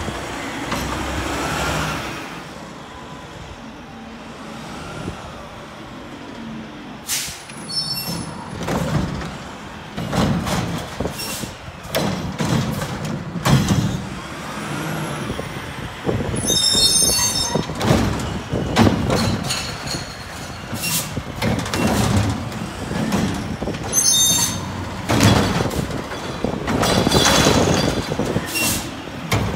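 Mack LR garbage truck with a Curotto-Can cart tipper at work: the diesel engine runs and pulls between stops, the air brakes hiss about three times, and knocks and bangs come from the carts and the lifting arm as a cart is grabbed and dumped near the end.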